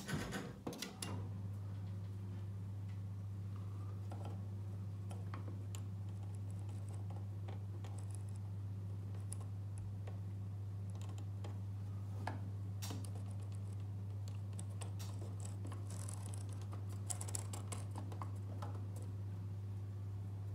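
Vaillant VCW 194/4-5 gas combi boiler starting up: a steady low hum sets in about a second in and holds evenly, with scattered light clicks and ticks over it.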